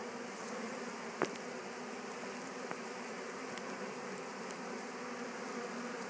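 Honey bee swarm buzzing steadily as the bees crowd the hive entrance and walk back into the hive. A single short click about a second in.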